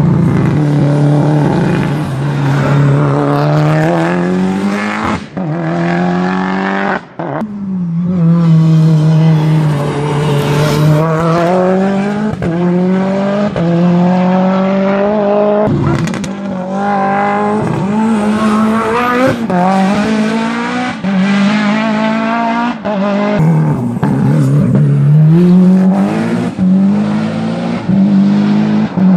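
Hillclimb race car engines at full throttle, revving up and dropping back with each gear change, in several short passes cut together with abrupt breaks.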